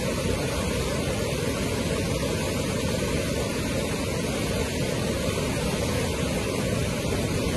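Floodwater rushing across a road in a fast torrent: a steady, even rushing noise with no breaks, heaviest in the low range.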